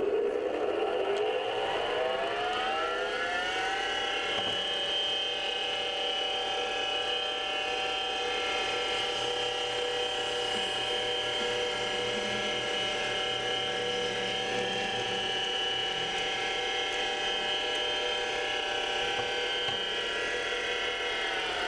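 7x16 mini lathe spindle spinning up with a rising whine of many tones over the first few seconds, running steadily while a drill bit bores into a spinning resin blank, then starting to spin down at the very end.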